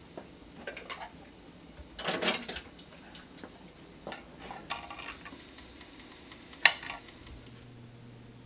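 Dishes and cutlery clinking and clattering in a kitchen: a run of short knocks and clinks, busiest about two seconds in, with one sharp clink about two thirds of the way through. A steady low hum of room tone near the end.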